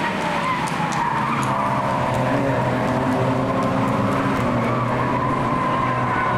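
A pack of Mazda MX-5 race cars' four-cylinder engines running together under power through a corner, with tyres squealing in a sustained high tone.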